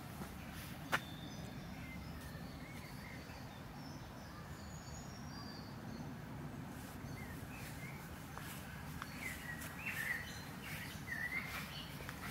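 Songbirds chirping in woodland, short scattered calls that grow busier near the end, over a steady low rumble. A single sharp click about a second in.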